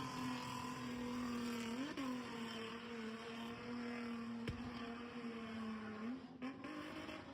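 Car engine running at steady, fairly high revs, with a short rise and fall in pitch about two seconds in and another rise near the end.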